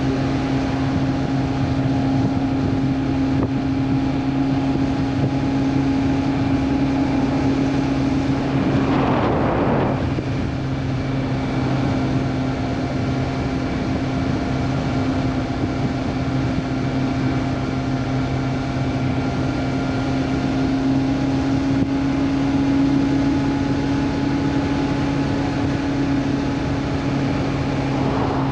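Honda CB400 Super Four's inline-four engine running at a steady cruise on the road, with wind on the microphone. The engine note breaks briefly about nine seconds in, with a short rush of noise, then settles back to the same steady note.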